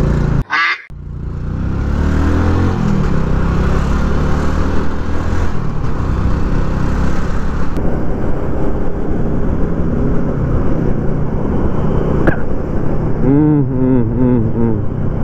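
Small motorcycle's engine running steadily with wind rushing over the microphone while riding in traffic. The sound drops out briefly about half a second in.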